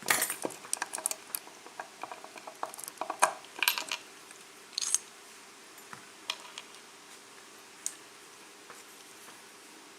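Metal clicks, scrapes and clatter of a Kwikset KIK lock being worked out of its holder by hand, busy for the first four seconds or so, then a few scattered clicks.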